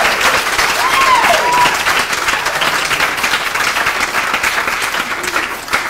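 Audience applauding, the clapping fading toward the end, with a short cheer about a second in.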